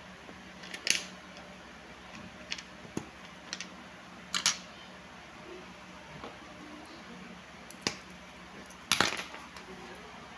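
Small sharp metallic clicks and scrapes of tools and parts handled while working on a wristwatch, scattered and irregular, the loudest about a second in, at about four and a half seconds, and just before the end.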